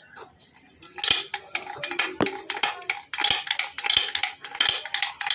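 Small metal engine parts and hand tools clinking and clattering against each other as parts are fitted by hand, a quick irregular run of light metallic knocks and scrapes starting about a second in.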